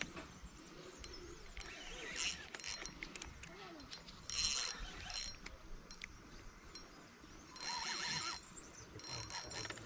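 Spinning fishing reel whirring and clicking in several short bursts while a fish pulls on the bent rod.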